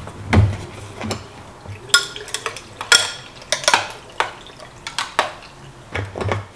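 Glassware being handled while a cold drink is made with ice: a string of sharp clinks and knocks, a couple of them ringing like a struck glass about two and three seconds in.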